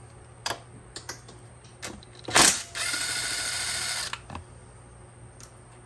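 A few light clicks and a knock, then a DeWalt cordless driver runs for about a second and a half, spinning a 10 mm bolt out of the plastic radiator shroud.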